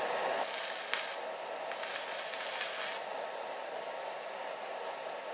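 Stick welding arc from a 120-amp handheld stick welder burning a 3/32-inch 6013 rod at about 84 amps: a crackling hiss. It is strongest in two spells in the first three seconds and carries on as a steadier hiss after that.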